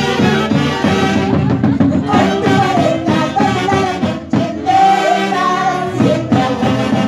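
Live band music through a PA system: a woman sings a melody over saxophones and a steadily beaten drum.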